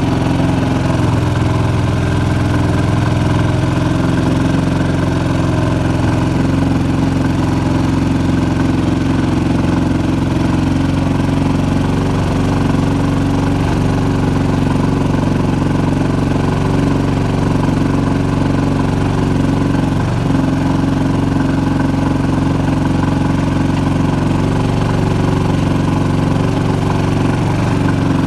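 6.5 hp Predator single-cylinder four-stroke engine pushing a small boat, running steadily at an even throttle.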